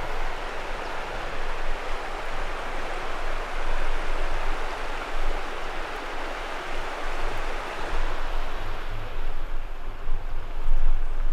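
Flowing water rushing steadily, like a stream or river running over rocks.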